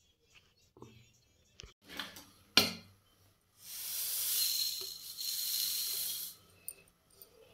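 Whole spice seeds (fennel, fenugreek, yellow and brown mustard, ajwain) poured from a steel plate into a dry kadhai, making a rushing hiss for about three seconds, briefly easing in the middle. A single sharp knock comes just before the pour.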